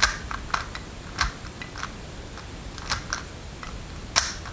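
Rubik's brand 3x3 cube, without magnets, being turned by hand: irregular plastic clicks and clacks of the layers, with a louder click about four seconds in.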